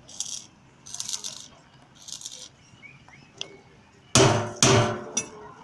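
Metalworking by hand on a welded steel wheelbarrow frame: short scraping strokes about once a second, then two loud hammer blows on the metal half a second apart, about four seconds in.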